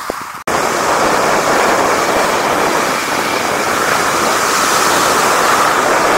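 Steady rushing noise of wind on an action camera's microphone while snowkiting over a frozen lake. It cuts in abruptly after a brief dropout about half a second in.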